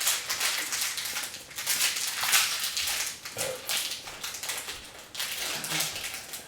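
Plastic snack wrapper crinkling and rustling in the hands as the package is worked at to open it, in irregular bursts of crackle.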